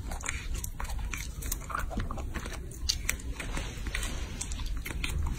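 Baby macaque biting and chewing fresh strawberries: a run of irregular wet smacking and crunching clicks, several a second.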